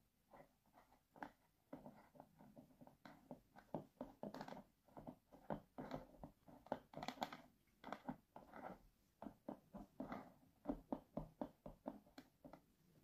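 Serrated cake knife sawing horizontally through a baked red velvet cake layer: quiet, many short, uneven rasping strokes as the teeth scrape through the crumb.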